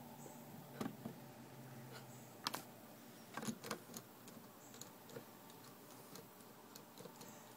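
A cat pawing at a glass door, making faint, scattered clicks and taps, most of them in the first half.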